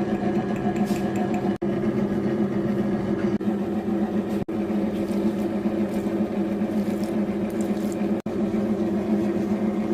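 Geepas wet grinder's electric motor running steadily as it kneads wheat-flour dough, a constant low hum broken by three split-second gaps.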